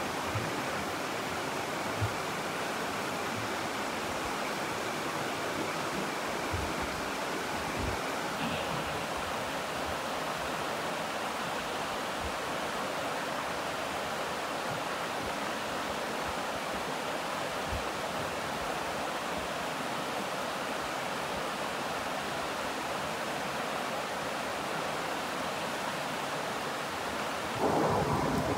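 Steady rush of a rocky stream flowing over rocks, with a few faint clicks. A louder sound comes in about a second before the end.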